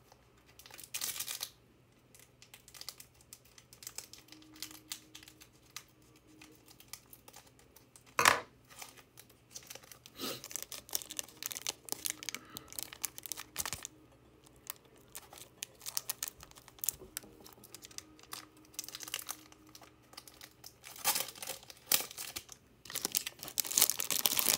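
Foil trading card pack being crinkled and torn open by hand: scattered crackles of the foil wrapper, one sharp loud crackle about eight seconds in, and a dense stretch of crinkling and tearing near the end.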